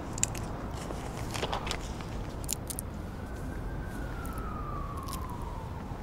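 Paper poster and sticky tape crackling as they are pressed onto a lamppost by hand: scattered short clicks and rustles over a steady low street rumble. From about three seconds in, a faint tone rises slightly and then slides slowly downward.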